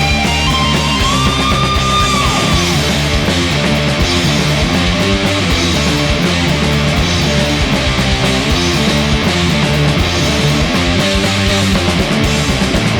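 Stoner rock band playing heavy distorted electric guitars, bass and drums. A lead guitar note is bent up and held near the start, then drops away.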